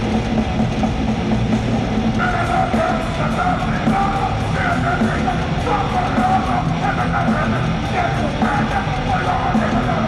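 Extreme metal band playing live: loud distorted guitars and drums, with yelled vocals.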